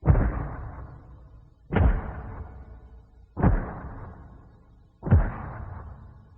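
Giant monster footstep sound effect in the Godzilla style: four heavy booming stomps about a second and three-quarters apart, each dying away slowly.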